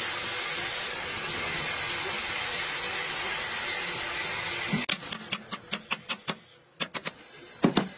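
Steady hiss, then a quick run of sharp metallic clicks and a louder knock near the end, as hand tools work the main bearing cap bolts over the crankshaft of a Komatsu bulldozer engine block.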